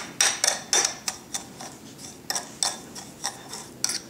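Metal spoon scraping and clicking against a small ceramic saucer while stirring baking soda and olive oil into a paste: irregular clicks about three a second, fainter for a moment in the middle.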